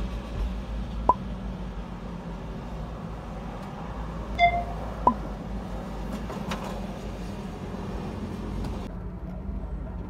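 Steady low hum inside a car, with a few short sharp pops and a brief beep about four and a half seconds in.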